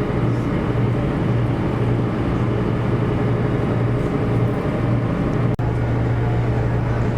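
Steady engine drone heard inside the cabin of a sightseeing aircraft, a constant low hum, briefly cut off for an instant about five and a half seconds in.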